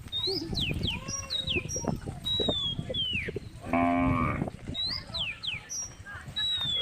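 A cow mooing once, a single call lasting under a second about four seconds in.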